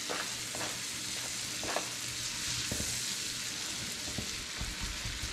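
Chopped red onion sizzling in melted butter in a hot wok, just added to start sautéing, with a steady hiss. A spatula stirring it gives a few short knocks and scrapes against the pan.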